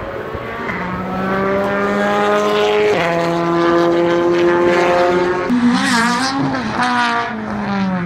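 Rally car engine accelerating hard: its pitch climbs, drops at a gear change about three seconds in and climbs again. Past the middle the revs waver up and down with throttle blips, then fall away.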